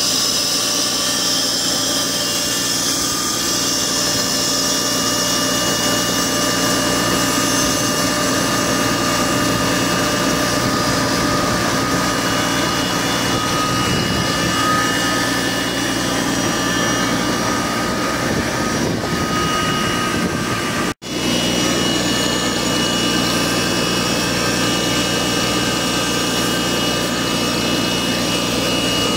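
Audi Allroad 2.7-litre V6 biturbo engine idling with a steady high-pitched whine riding over it, broken by a momentary gap about 21 s in. The owner guesses it is a bearing of some sort, even though the timing belt, water pump and serpentine belt have been replaced.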